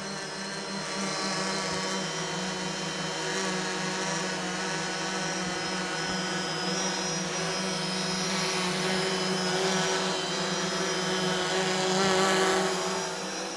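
Yuneec six-rotor drone hovering, its electric motors and propellers making a steady buzzing hum. The hum grows louder near the end as the drone passes close to the microphone, then falls away.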